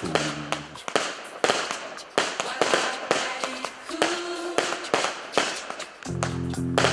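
Irregular sharp cracks and bangs over a noisy hiss, with music's low held notes heard at the start and again near the end.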